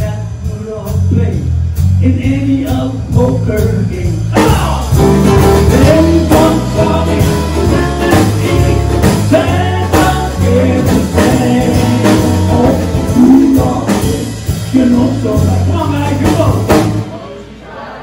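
Live band playing: electric bass, drums and guitar, with a man singing lead. The music drops off sharply near the end.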